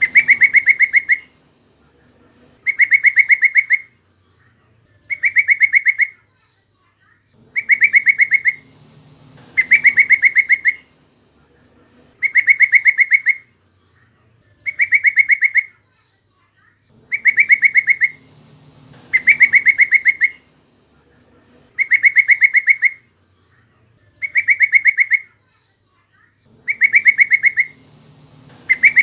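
Yellow-vented bulbul (trucukan) call: a fast run of notes about a second long, repeated over and over every two seconds or so in the same form, as in a looped lure recording.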